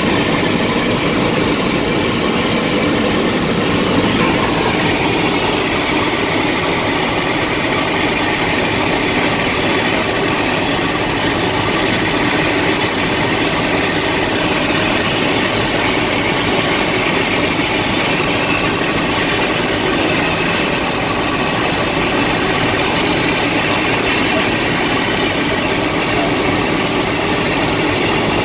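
Bell 206 helicopter's turboshaft engine and rotor running in flight, heard as a loud, steady cabin drone.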